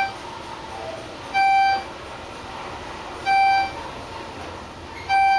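Electronic beep in a Schindler traction elevator's cab, a short pitched tone repeating about every two seconds, three times, over the steady hum of the cab.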